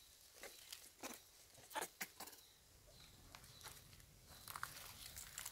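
Faint, scattered rustles and crackles of dry fallen leaves as macaques shift about on the rocks, a few sharp clicks among them.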